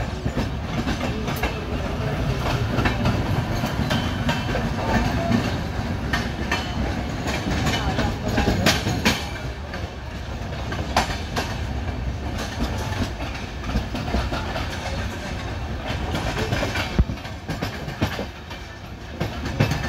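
Passenger train coach wheels running over rail joints and pointwork through a railway junction: a steady rumble with irregular sharp clacks.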